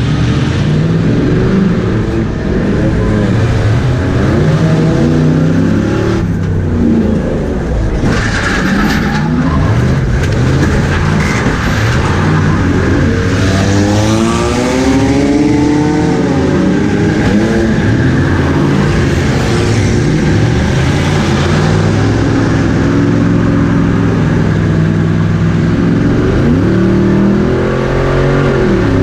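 Race car engines running and revving together, heard from inside one of the cars. Their notes climb and fall again and again, with a sweep of rising engine notes about halfway through.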